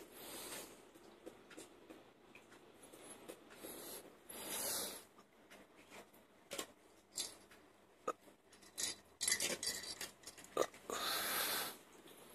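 Soft, scattered clicks and short rustles as macaques pick food out of a stainless steel bowl, with a few brief louder rustling bursts.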